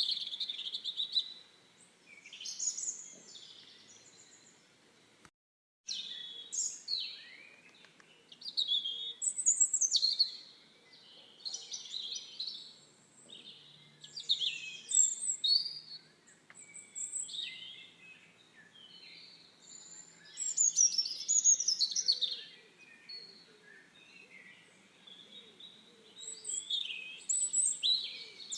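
Small songbirds chirping and singing in quick high-pitched phrases, several calls overlapping, with a brief cut to silence about five seconds in.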